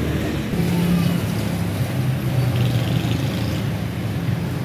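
Street traffic noise with a steady, low engine hum, typical of vehicles idling and passing on the road.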